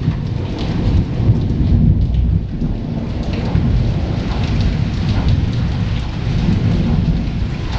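Heavy rain falling, with a continuous low rumble of thunder under it.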